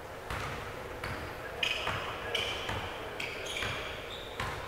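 Basketball bouncing on a gym court in a few separate thuds, with short high-pitched sneaker squeaks in between.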